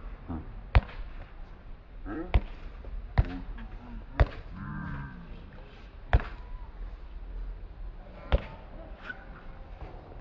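A basketball bouncing on a hard court: six sharp bounces, irregularly spaced about one to two seconds apart, with men's voices calling in between.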